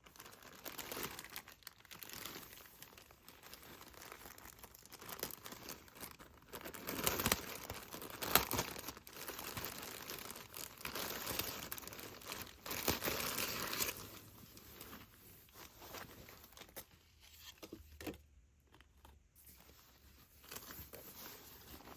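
Packaging being torn open and crinkled by hand, in irregular rustles and rips, busiest in the middle and thinning out toward the end.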